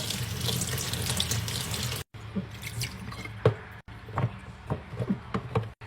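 Tap water running over a silicone pop-it fidget toy as it is rinsed in a sink, cutting off abruptly about two seconds in. Scattered light taps and knocks follow as the toy is handled.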